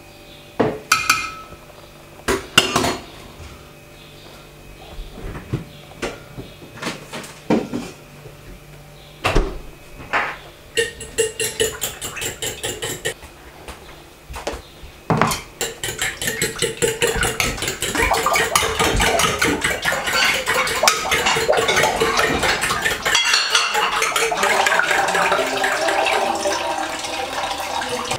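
A metal spoon clinks against an enamel pot, first in separate knocks, then from about halfway in quick, steady stirring that grows louder.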